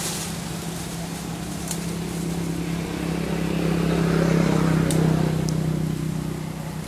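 A motor vehicle engine running with a steady low hum, growing louder to a peak about four to five seconds in and then fading away, as a vehicle passes. A few brief sharp clicks.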